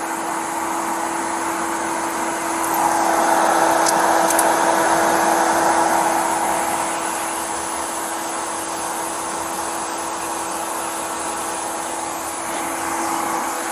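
Steady hum of an idling truck engine with one constant droning tone. A louder rushing noise swells up about three seconds in and eases off by about seven seconds.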